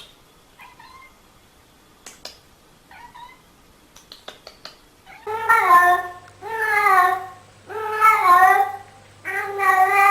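A cat meowing: two faint short meows early on, then, from about five seconds in, four loud, long, drawn-out meows one after another.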